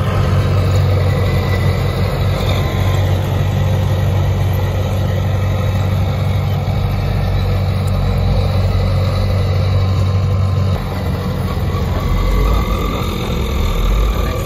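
Heavy diesel machinery running, from a crawler bulldozer and a loaded Howo dump truck bogged in sand: a steady deep engine hum. About eleven seconds in it drops in level and gets lower.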